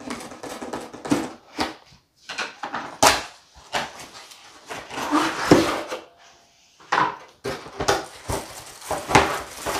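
Cardboard box being cut open and unpacked: a box cutter slitting the tape, then the cardboard flaps and packing insert scraping and rustling in irregular short bursts with a couple of brief pauses.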